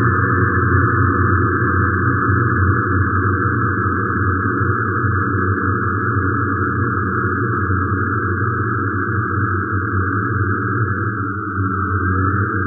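Many drones of the DIN Is Noise microtonal software synthesizer sounding together as a dense, steady low chord, with a steady band of noise sounding higher up.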